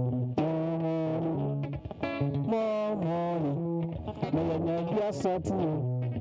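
A man singing live into a microphone in long held notes that glide up and down, over guitar accompaniment with a low bass line.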